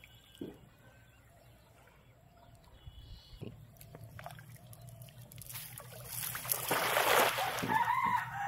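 A cast net thrown into the shallow water of a flooded paddy field, landing with a broad splash that swells about six seconds in and lasts a couple of seconds. A rooster starts crowing near the end.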